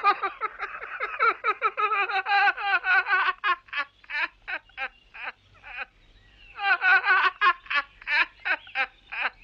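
A man laughing helplessly in high-pitched fits: a long shaking laugh, then short separate bursts about four a second, then another long fit about seven seconds in.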